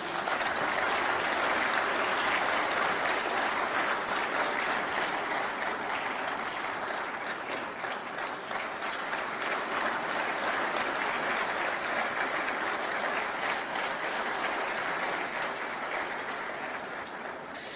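Audience applauding steadily for the whole stretch, easing off slightly near the end.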